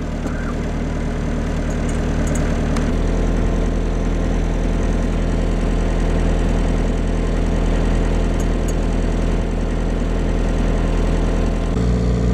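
Motor cruiser's inboard engine running steadily at low cruising speed. Its note changes about three seconds in and again near the end.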